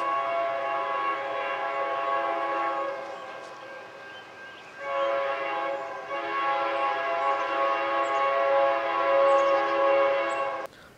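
Approaching diesel freight locomotive's air horn sounding a chord of several notes: a long blast that fades away about three seconds in, then a second long blast from about five seconds in that cuts off abruptly just before the end.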